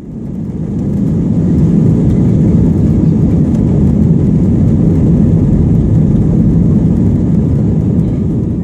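Loud, steady low engine rumble that swells up over the first second or two and holds without change.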